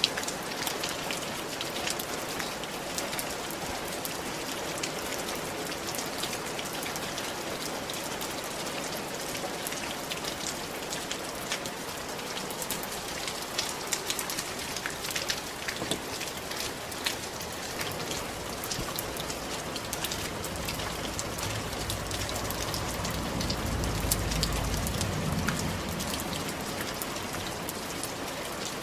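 Steady rain falling on a tiled roof, a constant hiss with many sharp individual drop taps. About two-thirds of the way in, a low rumble swells for several seconds and fades.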